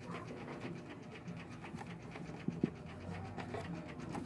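Quick, even panting breaths run throughout, with one sharp click about two and a half seconds in, while hands handle the taped wires of a switch.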